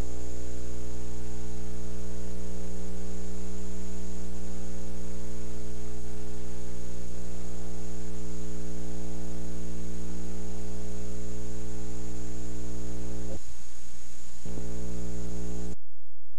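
Loud, steady electrical mains hum with a buzz of evenly spaced overtones and a hiss over it. About 13 s in the higher buzz breaks off for a second, and near the end it drops away, leaving only a low hum.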